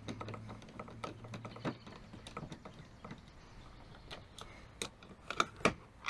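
Irregular light clicks and ticks of a Phillips screwdriver turning a screw out of the plastic interior door-handle recess of a Honda Civic door panel.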